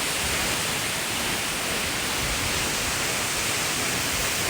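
Waterfall rushing close to the microphone: a steady, even roar of falling water.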